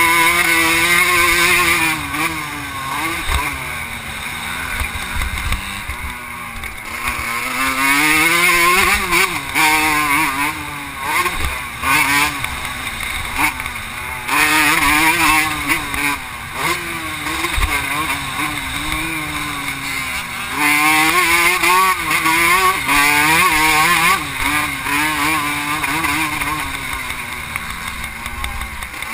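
Vintage 125 cc two-stroke motocross bike engine at racing speed, revving up hard and falling back over and over through gear changes and corners, heard from a helmet camera on the rider.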